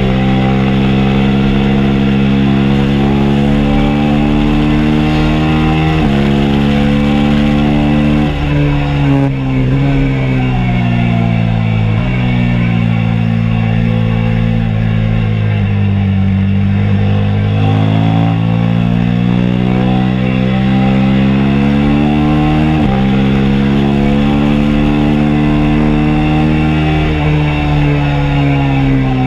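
A 2022 KTM RC 390's single-cylinder four-stroke engine running under a rider at part throttle. The engine note steps up and down with gear changes and throttle, sags through the middle and climbs again, then falls away near the end.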